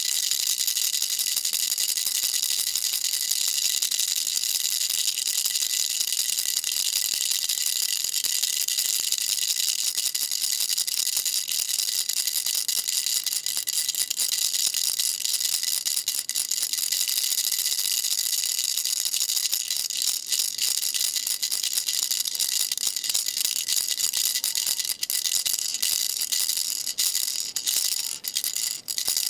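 Baby rattle shaken continuously: a dense, steady, high-pitched rattling, with a few brief breaks near the end.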